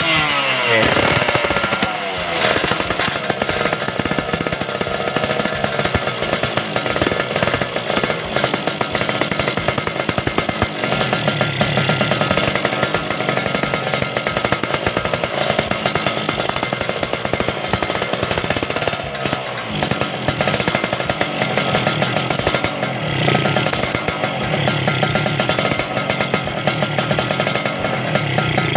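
Yamaha RX-King's single-cylinder two-stroke engine running, a fast buzzing pulse, with its revs falling away about a second in and swelling a little now and then.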